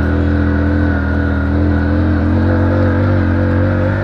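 Hero HF Deluxe motorcycle's small single-cylinder four-stroke engine running steadily as the bike is ridden through sand, its pitch dipping slightly about halfway through.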